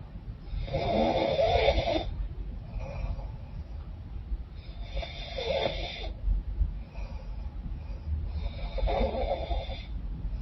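A woman snoring in her sleep through a blocked, runny nose. Three loud snores come about four seconds apart, each lasting about a second and a half, with fainter breaths in between.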